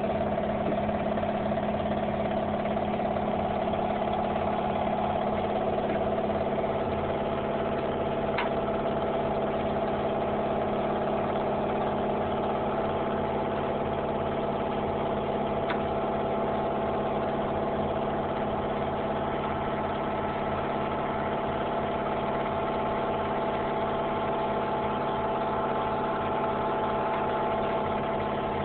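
A machine running with a steady drone of several tones, unchanging throughout, with two faint clicks, one about a third of the way in and one about halfway through.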